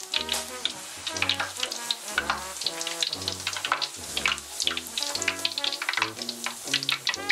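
Skewered pork large intestine (makchang) deep-frying in hot oil in a wok, a steady sizzle full of quick crackling pops. Background music with a steady bass line runs underneath.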